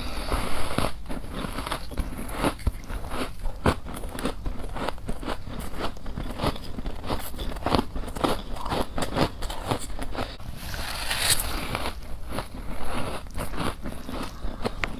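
A person biting and chewing frost, with many sharp, irregular crunches and crackles.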